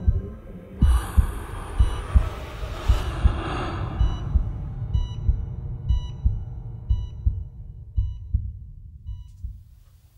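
Heartbeat sound effect: low lub-dub thumps in pairs, about once a second. A hissing swell runs through the first few seconds, and from about halfway in short electronic beeps repeat at an even pace. It all fades out near the end.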